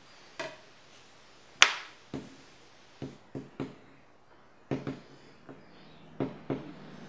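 A plastic CD set down and knocked against a wooden tabletop: a string of sharp taps and clacks, the loudest a single hard knock about a second and a half in.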